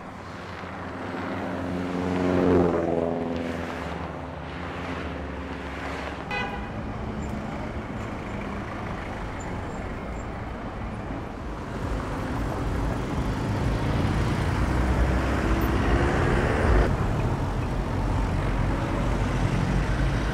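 Road traffic: a vehicle passes about two seconds in, its engine note falling as it goes by. Then comes a steady street traffic hum, with a vehicle's engine rising in pitch from about twelve seconds on.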